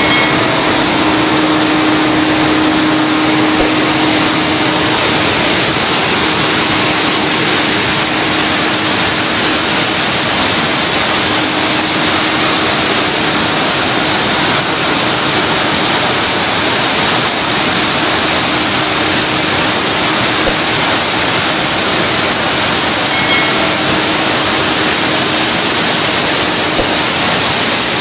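Water rushing at high speed down a dam's spillway chutes and crashing into spray below: a loud, steady, unbroken noise of fast-flowing water.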